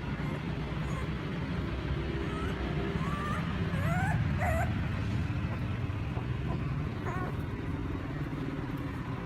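Puppies whimpering and crying in short, rising, high-pitched cries, several in the middle of the stretch, over a steady low rumble.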